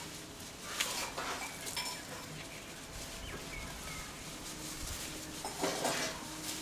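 Sheep in a pen: two short bleat-like calls, about a second in and near the end, with light clinking between them.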